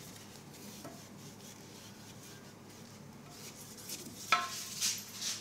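Faint rubbing and handling on a ceramic toilet bowl as cleaner is smeared on by hand, then a sharp knock with a brief ring about four seconds in and a couple of short, hissy swishes near the end.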